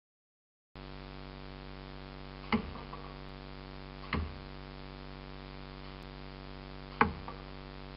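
Three single shots from an air gun, each a sharp crack with a short tail, spaced about one and a half and then three seconds apart, over a steady electrical hum.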